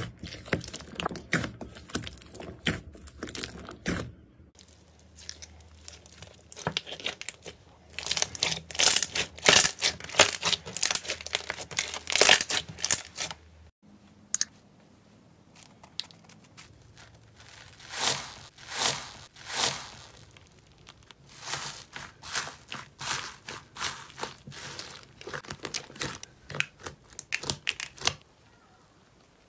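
Slime being squeezed and poked by hand in bowls: soft squishing at first, then runs of crisp crackling and crunching presses from crunchy slime, several presses a second.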